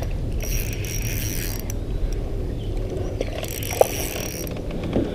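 Spinning reel whirring in two spells of about a second each while a hooked smallmouth bass is played on 4-pound line.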